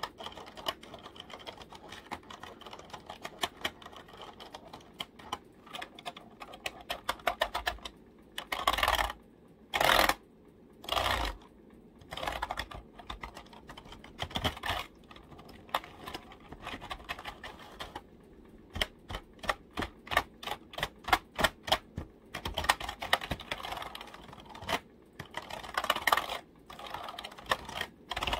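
Computer keyboard keys tapped in fast, irregular runs of clicks, with a few louder bursts about half a second long in the middle and near the end.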